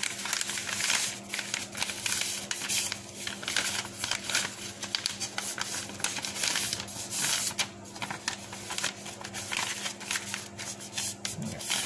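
A sheet of paper being folded and creased by hand: irregular rustling and crackling throughout.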